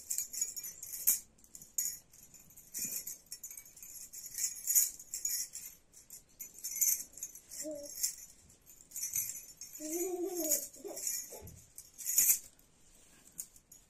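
Bangles on both wrists jingling and clinking in irregular bursts as the arms move to tie up long hair.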